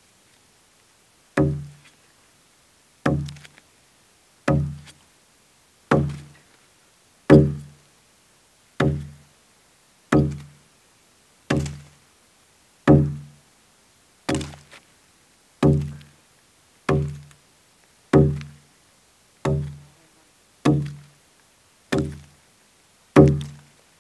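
Handmade Basque axe chopping V-notches into a felled log, scoring it for hewing into a square beam. Steady single strokes land about every second and a half, each a sharp chop followed by a brief low ring from the log.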